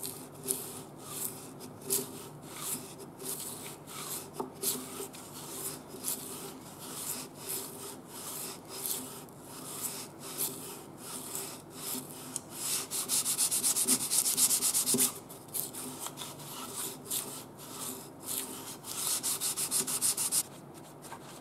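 Sandpaper on a honing block rubbed back and forth by hand across the metal face of a hydrostatic transmission part, about two scraping strokes a second. The strokes quicken into a dense run about two-thirds of the way through and again near the end. This is hand resurfacing to take out the gouges and grooves that made the transmission whine and lose drive when hot.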